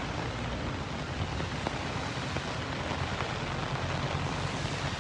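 Steady rushing noise of rain and the fast-flowing, swollen floodwaters of a river in spate, with a low wind rumble on the microphone.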